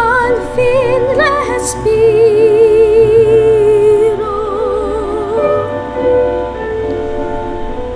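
Soprano singing a classical art song with wide vibrato, a few quick rising notes giving way to a long held note, accompanied by a digital piano. The voice stops about six seconds in and the piano plays on alone.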